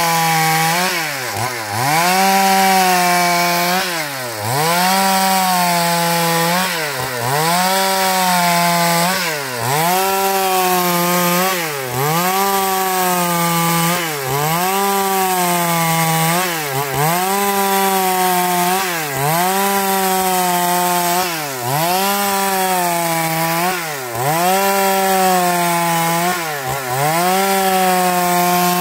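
Stihl MS 382 two-stroke chainsaw at full throttle ripping a wooden plank lengthwise. The engine pitch dips briefly about every two and a half seconds and climbs straight back up.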